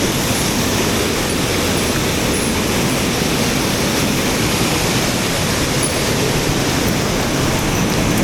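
Mountain stream water rushing, a loud, steady rush with no breaks.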